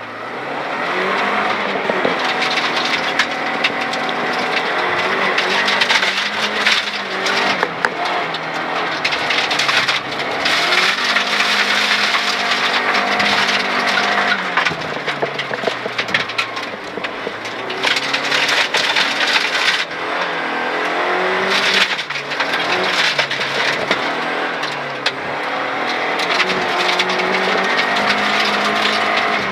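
Rally car's engine heard from inside the cabin, revving hard and climbing in pitch, then dropping at each gear change, again and again as the car is driven flat out. Gravel crackles and clicks under the car throughout.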